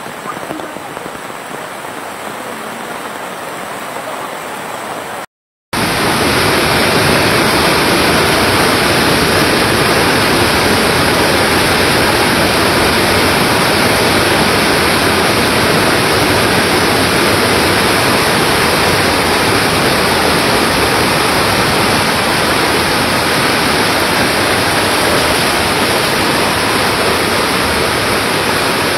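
Floodwater rushing in a strong current, a loud steady wash of water noise. The first five seconds are quieter, with rain and water; after a brief cut to silence, the torrent is much louder and stays even.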